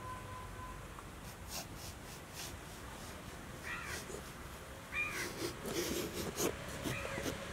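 Hand-held Y-peeler scraping long strips of skin off a bottle gourd, a run of soft, irregular rasps. Three short wavering animal calls sound about four, five and seven seconds in.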